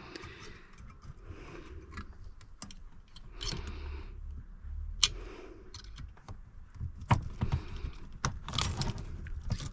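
Small metal parts of an Audi ignition lock and the tools working them, clicking and rattling irregularly as a part is worked into place, with a busier run of sharp clicks near the end.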